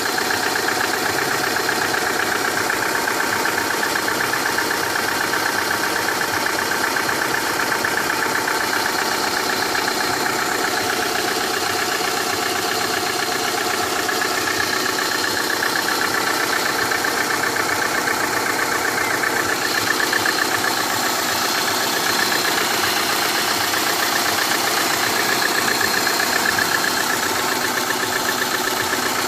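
Subaru Impreza's EJ18 1.8-litre flat-four engine idling steadily with a rhythmic knock, now present with the engine warm at 305,000 km; the owner suspects the fourth cylinder.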